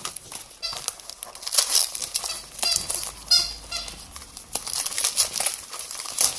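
Wrapping paper and packaging crinkling and rustling as a small gift packet is unwrapped by hand, with a couple of short squeaky rasps, the clearest about three and a half seconds in.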